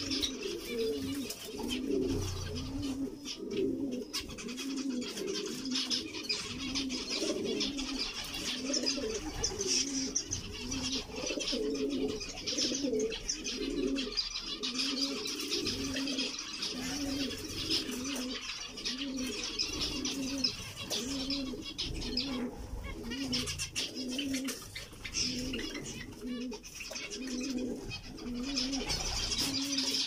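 Zebra finches chattering and chirping steadily over a low dove coo that repeats about once a second.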